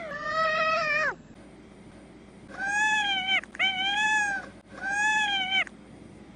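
A cat meowing: a long drawn-out meow that ends about a second in, then after a short pause three meows in a row, each just under a second long and rising then falling in pitch.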